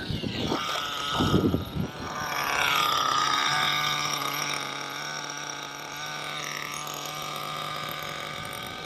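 Small nitro engine of an RC buggy running. Its pitch drops about two to three seconds in and then holds at a steady idle. Wind buffets the microphone in the first couple of seconds.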